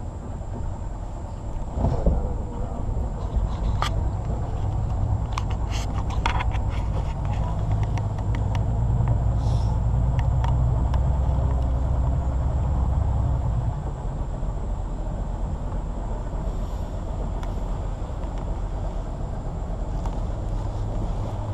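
Boat motor running steadily on a river, a low rumbling hum that grows louder about a third of the way in and eases back a little over halfway through, with scattered knocks and clicks.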